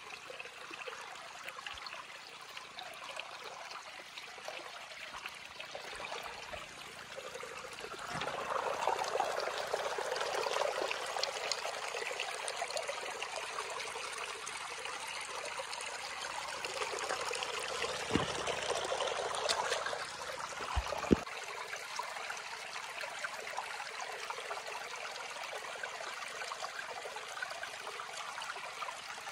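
Shallow stream running over stones, a steady rush and trickle of water that grows louder about eight seconds in and eases back around twenty seconds, with a single sharp click just after that.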